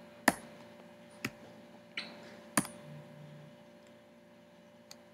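Four sharp clicks a little under a second apart, like presses on a computer while slides are advanced, then two faint ticks near the end, over a low room hum.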